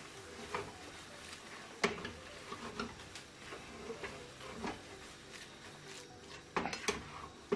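Spatula knocking and scraping against a wok while stir-frying noodles, in irregular clicks and taps, with a sharper knock about two seconds in and a quick run of knocks near the end.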